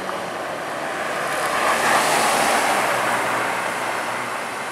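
Ferrari California's V8 engine running at a steady, moderate note as the car drives past, with tyre and road noise; the sound swells to a peak about two seconds in and fades as the car pulls away.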